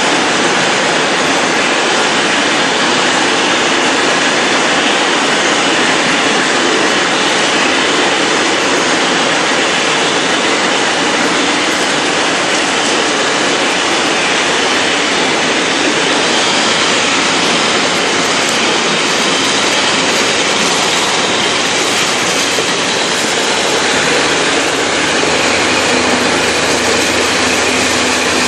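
Long-tail boat engine running steadily under way, a loud unbroken drone mixed with the rush of water along the hull.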